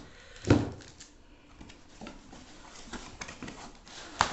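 Cardboard laptop box and its foam packing blocks being handled: a dull thump about half a second in, then soft rubbing and scraping, and a sharp knock near the end.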